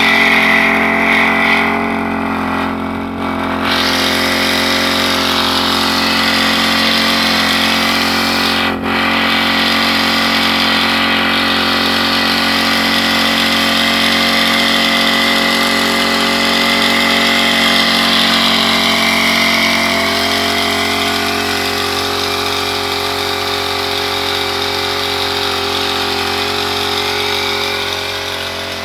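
Small petrol engine of a backpack power sprayer running steadily at a constant speed while spraying.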